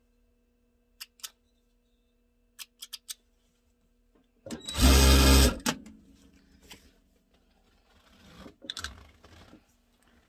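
Dürkopp Adler 281 industrial sewing machine running in one short burst of about a second, stitching a seam; this is the loudest sound. Before it come a few sharp snips of scissors, and near the end the fabric pieces rustle as they are handled.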